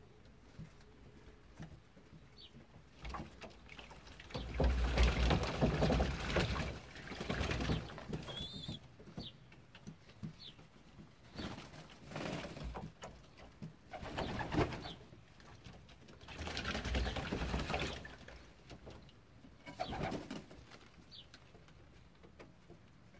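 Young racing pigeons bathing in a shallow crate of water: repeated bursts of splashing and wing-flapping, the longest about four to eight seconds in, with pigeons cooing and faint high peeps between them.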